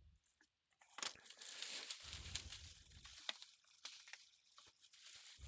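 Faint rustling and crinkling of packaging being handled, with scattered light clicks and a low bump partway through.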